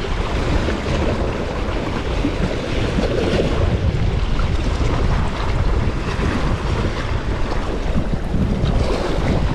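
Wind buffeting the microphone, a steady low rumble and hiss, over the wash of sea waves.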